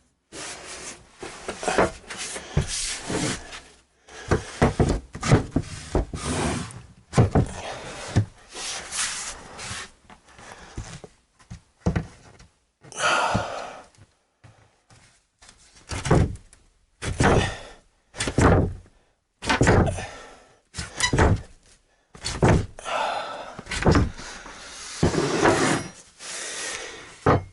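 A particle board subfloor panel being banged and forced into place: repeated irregular wooden thuds and knocks, in short runs with brief pauses between them.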